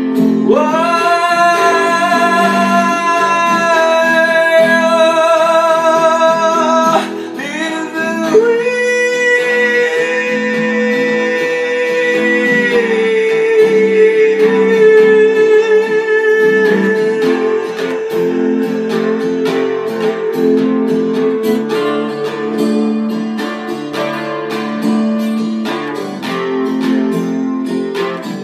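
Live acoustic guitar and voice with long wordless held notes. The voice slides up into a high note and holds it for about six seconds, then takes a lower note held for about twelve seconds. After that the guitar playing carries on alone.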